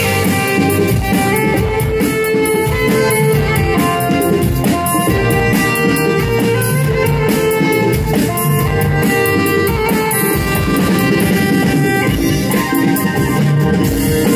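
Live band playing through a PA system: a saxophone carries the melody in sustained notes over drum kit, keyboards and electric guitar.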